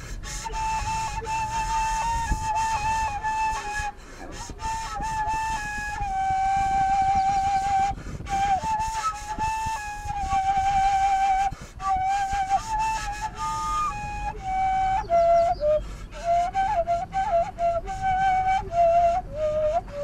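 Background music: a solo wind instrument plays a slow melody of long held notes. About two-thirds of the way through it turns to quicker, ornamented runs.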